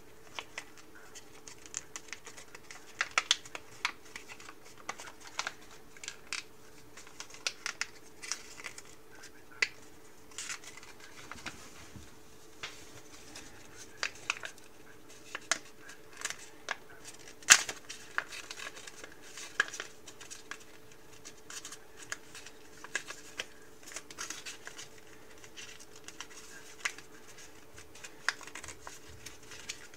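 A sheet of origami paper being folded and creased by hand: irregular short crackles and rustles, the sharpest a little past halfway, over a faint steady hum.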